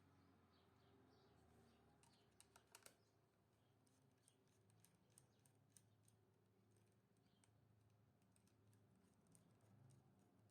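Near silence: room tone with a few faint scattered ticks.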